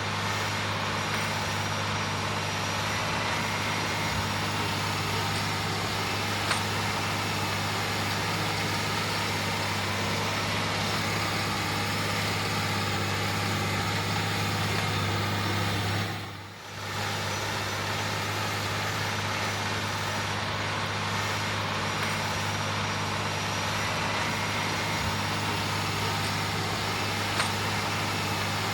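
John Deere 9360R tractor's diesel engine running steadily under load as it pulls an 8-bottom moldboard plow, a continuous low drone. The sound briefly drops away and comes back about two-thirds of the way through.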